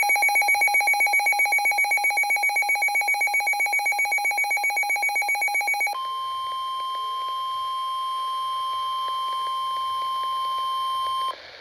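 Weather radio alert: a rapidly pulsing electronic alarm beep, about seven pulses a second, for about six seconds, then switching to the steady single-pitch NOAA Weather Radio warning alarm tone. The tone cuts off sharply just before the end. It signals that a severe thunderstorm warning is about to be read.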